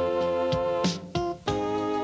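Instrumental background music: held chords with sharp drum hits, the chord changing about a second and a half in.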